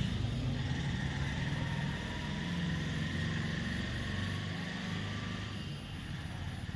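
Low steady motor rumble that eases off slightly over the last few seconds.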